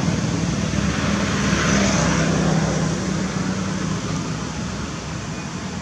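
A motor vehicle's engine running, a steady low hum over road noise that eases off after about three seconds.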